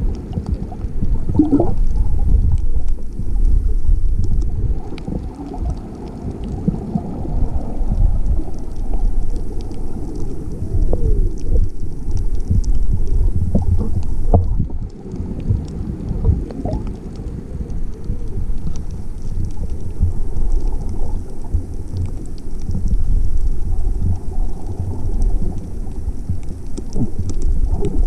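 Underwater sound in shallow surf over a reef, picked up by a GoPro: a low, muffled rumble of churning water and wave surge that rises and falls every several seconds, with faint scattered ticks and a few short gurgling glides.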